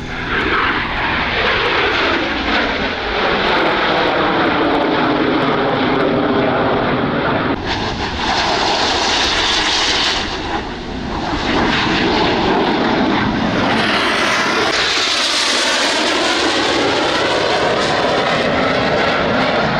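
Airplane flying past, its engine noise loud throughout, with a pitch that sweeps down early on and sweeps again later as the aircraft passes. The noise dips briefly about halfway through before a second loud pass.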